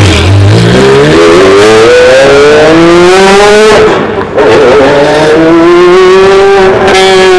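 Supercar engine accelerating hard, loud: its pitch climbs for nearly four seconds, drops briefly at an upshift, then rises again and holds high.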